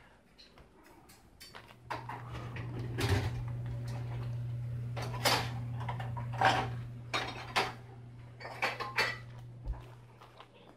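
Dishes and cutlery clinking and clattering irregularly as they are handled in a dishwasher rack, over a steady low hum.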